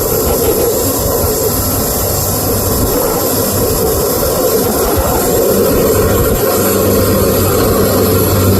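Cessna 208 Caravan's single turboprop engine running at takeoff power, with wind buffeting the microphone. A steady low propeller drone comes in about five and a half seconds in and grows slightly louder.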